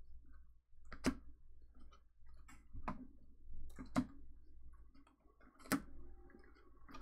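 Trading cards in hard plastic holders set down one by one on a playmat and onto each other: about five sharp plastic clicks, a second or two apart.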